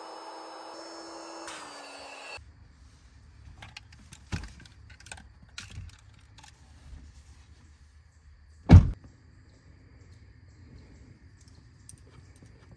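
Small electric air pump inflating a rear-seat air mattress, a steady hum that drops slightly in pitch and then cuts off about two seconds in. After it come scattered small knocks and handling sounds, with one loud thump near nine seconds in.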